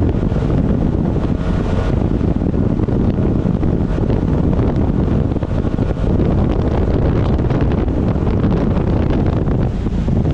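Heavy wind buffeting the microphone on a speedboat running fast over the water, with the two-stroke outboard running and water rushing beneath it.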